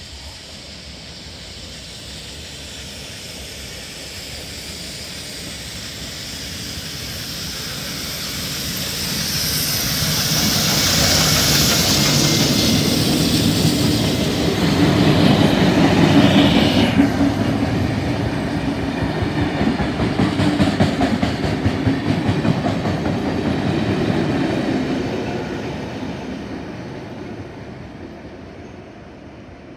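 A passenger train hauled by NSW 59 class Baldwin steam locomotive 5917 passing through a station: it grows louder as it approaches and is loudest about halfway through as the engine goes by. A brief falling high tone comes just after the loudest point, then the carriage wheels clatter over rail joints as the train fades away near the end.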